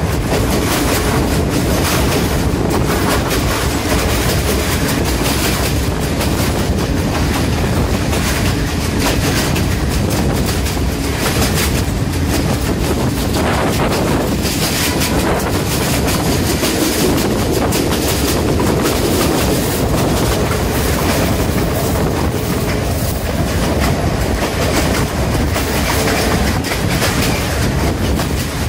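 Passenger train running along the line, heard from an open carriage window: a steady rumble and rush of the moving train with a fast, continuous clatter of wheels on the rails.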